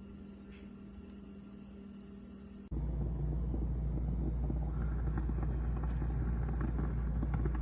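A quiet steady hum, then an abrupt cut about two and a half seconds in to a loud, steady low rumble with crackling noise: road rumble inside a moving car.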